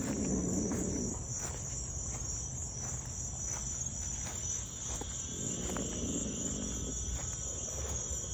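Crickets chirping in a steady high trill at night. Twice, near the start and again about five seconds in, there is a second or so of low rustling.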